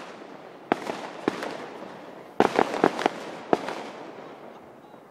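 Aerial fireworks bursting: a string of sharp bangs with echoing tails, several in quick succession in the middle, then fading away near the end.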